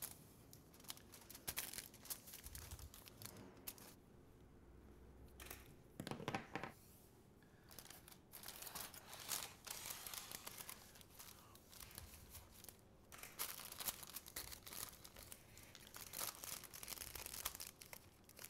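Aluminium foil and parchment paper crinkling and rustling in intermittent handfuls as they are folded down over a dish and tied with twine.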